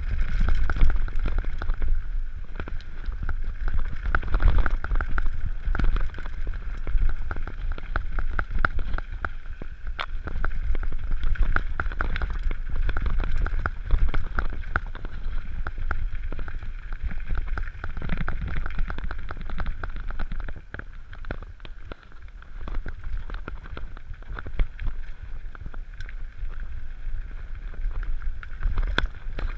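Mountain bike riding fast down a gravel trail: wind buffets the microphone with a steady low rumble while the tyres run over loose stones and the bike rattles and clicks over bumps. It eases off briefly a little past two-thirds of the way through.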